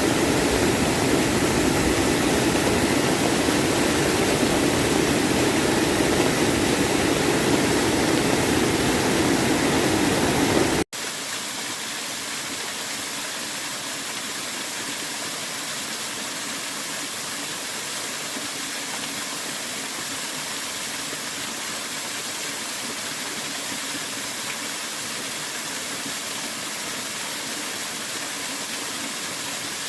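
Mountain stream water rushing steadily, with no single splashes standing out. About eleven seconds in, the sound cuts abruptly to a quieter, thinner rush of water.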